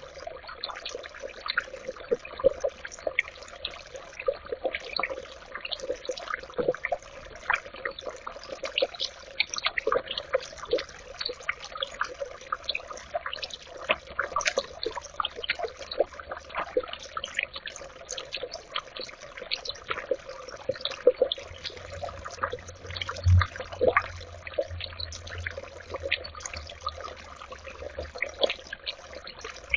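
Birdbath fountain water trickling and dripping, with many irregular little drips and splashes over a steady burble. A low hum joins for several seconds past the middle.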